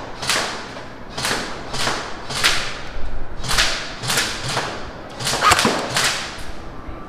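Airsoft AK-47 replica rifle firing single shots, about ten in a row at an uneven pace of one to two a second. Each shot is a sharp crack with a short ringing tail.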